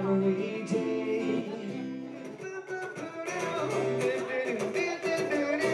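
Acoustic guitar playing, with a voice singing.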